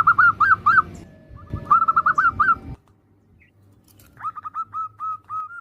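Female zebra dove calling: quick runs of short, clipped, arched notes, five to seven in a run. Three runs are heard. The sound cuts off abruptly about halfway through, and the last run is quieter.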